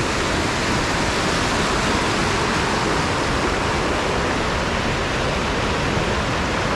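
Fast-flowing dam release water pouring over a low concrete weir: a loud, steady rush of churning water. The flow is high because the dam's gates have been opened fully.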